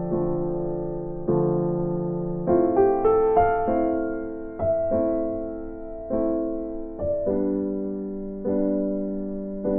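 Slow background music on electric piano: chords struck about once a second, each left to fade.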